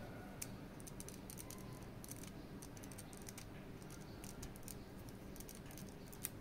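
Faint, scattered small clicks and taps of an action figure's hard parts and packaging being handled, with a sharper click just under half a second in and another near the end.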